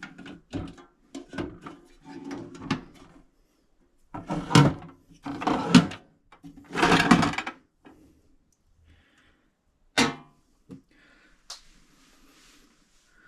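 Steel drawers of a stacked Kobalt mini tool box being slid open and shut: a run of small clicks, then three longer sliding rasps, and two sharp knocks near the end.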